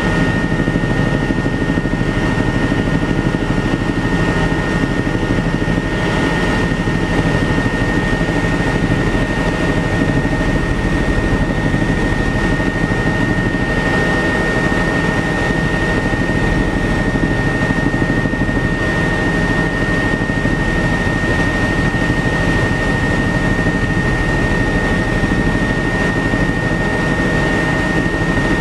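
Helicopter in steady flight, heard from on board: a constant loud rotor and engine drone with a steady high whine running through it.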